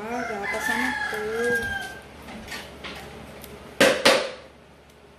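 A rooster crowing once, one long call of about two seconds. A little under four seconds in come two sharp knocks.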